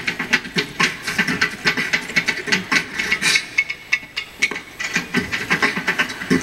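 Many sharp claps and stomps in quick succession, the percussion of a stomp-style show.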